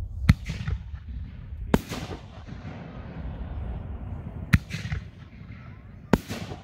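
Tannerite 4-inch 60-gram canister firework shells firing from a rack: four sharp reports at irregular gaps, some trailed by a brief crackle.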